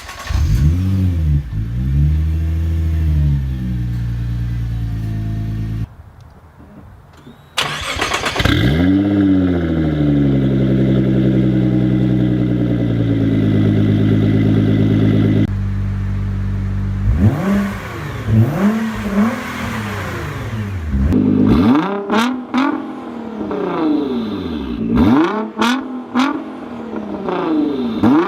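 Nissan GT-R R35's twin-turbo V6 exhaust, heard in separate takes: the engine starts with a rev and settles to a steady idle, cuts off, then starts and idles again. In the second half it is blipped in a string of quick free revs, each rising and falling, with sharp cracks among them.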